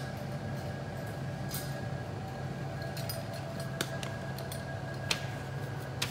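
Spray booth fans running with a steady hum, with a few light clicks and clinks now and then.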